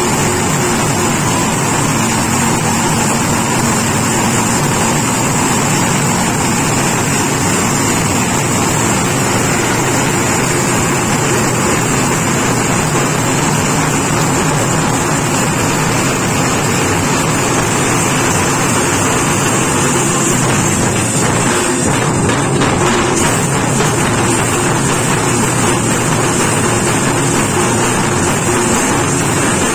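Tamil folk drum band (jamab) playing parai frame drums and barrel drums with sticks: dense, unbroken drumming at a steady loudness.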